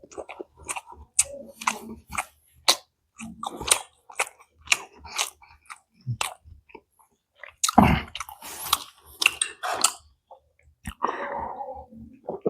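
Close-miked chewing and biting of soybean-stuffed veg momos, with many short wet mouth clicks and a louder, denser stretch about eight seconds in.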